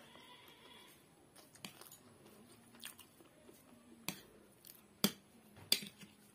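Someone eating noodles: soft chewing with about five sharp clicks at irregular intervals of a metal fork against the plate and teeth, the loudest two in the last two seconds.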